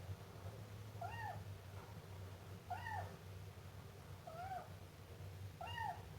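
Siamese kitten meowing: four short meows about a second and a half apart, each rising then falling in pitch, over a low steady hum.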